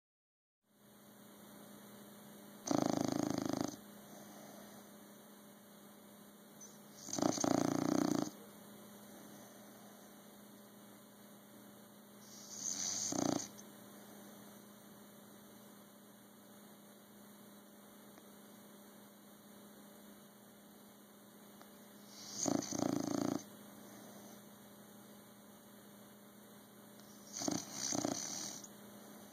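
Bulldog snoring: five loud snores, each about a second long, with irregular gaps of four to nine seconds between them. A steady electrical hum sits underneath.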